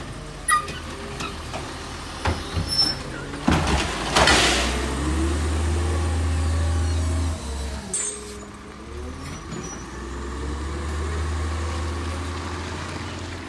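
LNG Labrie Automizer garbage truck: a few clanks, then a loud hiss of air from the brakes about four seconds in, then the natural-gas engine pulling the truck away with a rising whine as it accelerates, easing off about seven seconds in and climbing again.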